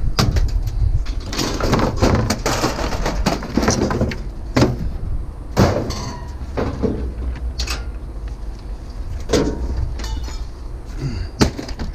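Sheet metal of a scrap washing machine scraping and clanking as it is worked apart by hand, with several sharp metallic knocks, over a steady low rumble.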